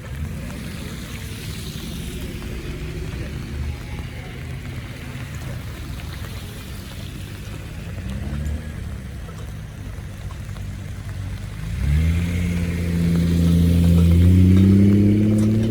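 Cars driving past with a steady low rumble. About 12 s in, a louder vehicle engine comes in and rises slowly in pitch as it accelerates past.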